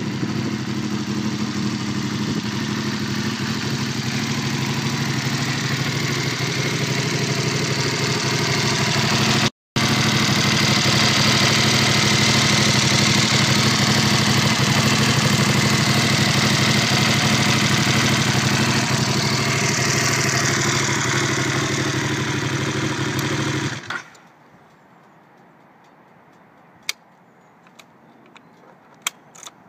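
Aprilia Caponord 1200's 90-degree V-twin with an Arrow titanium exhaust, idling steadily. The sound drops out for an instant about ten seconds in. The engine stops abruptly about 24 seconds in, followed by a few faint clicks.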